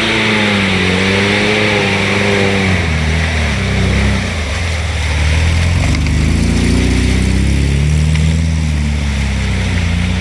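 Off-road vehicle engine working under load, its note rising and falling several times as the throttle is opened and eased off.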